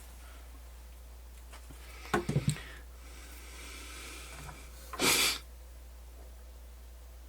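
Small handling clicks and rustles while cotton swabs are picked up and used on the cassette mechanism, then a short, sharp sniff about five seconds in, over a steady low hum.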